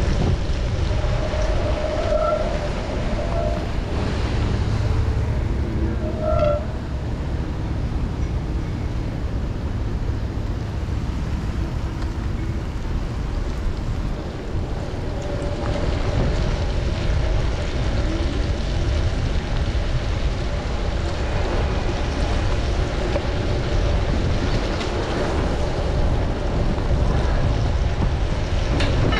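Steady rush of wind over the microphone and tyre noise on wet pavement from a bicycle ride through city traffic. A steady mid-pitched tone joins about halfway through.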